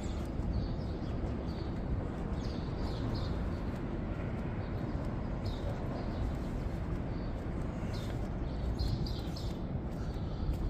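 Birds chirping in short, high calls every second or two over a steady low background rumble.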